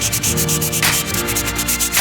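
Rhythmic rubbing strokes on wood, like hand sanding, over background music with held notes.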